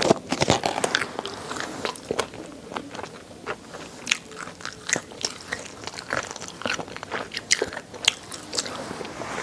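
Close-up chewing of chicken neck, the small neck bones crunching and cracking between the teeth in quick, irregular snaps, with wet mouth sounds.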